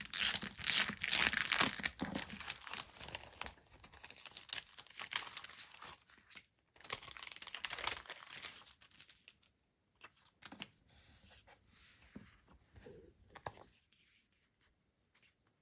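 Thin plastic packaging being crinkled and torn open by hand as stationery is unwrapped, loudest and densest in the first few seconds, coming back in two shorter spells, then thinning to quiet rustles and small taps.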